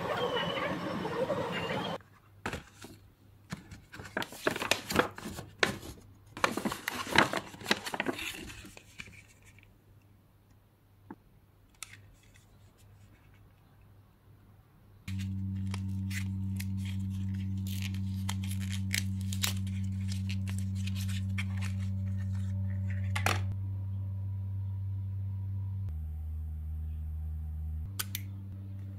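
Paper packaging crinkling and tearing in a quick run of sharp crackles for several seconds, after a brief moment of busy background hubbub. After a quiet pause, a low steady drone comes in and shifts pitch twice near the end, with a few light clicks of a small cardboard box and lipstick case being handled.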